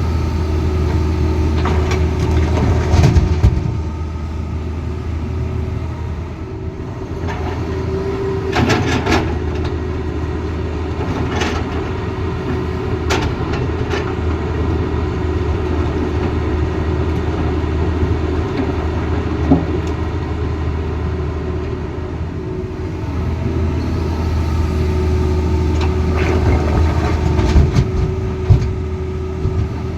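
Diesel engine of a Tata Hitachi Zaxis excavator running steadily, its hum swelling at the start and again near the end, with scattered sharp knocks and clanks.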